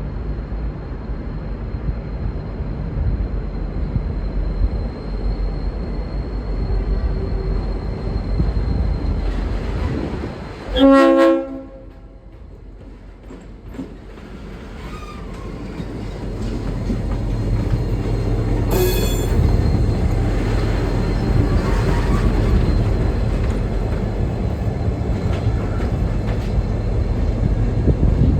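V/Line N class diesel locomotive rumbling, with one short blast of its Leslie RS5T five-chime air horn about a third of the way in. A sharp knock comes later, and the locomotive's rumble builds again toward the end.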